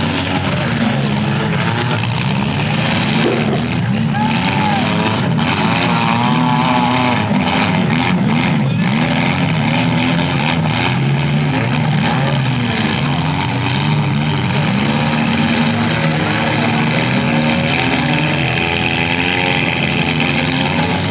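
Several compact cars' engines revving and running at once in a demolition derby, their pitches rising and falling as the cars accelerate and back up.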